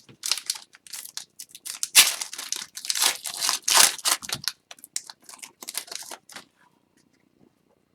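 Upper Deck Series 1 hockey card pack wrapper being torn open and crinkled: a run of rustling tears and crackles that stops about six seconds in.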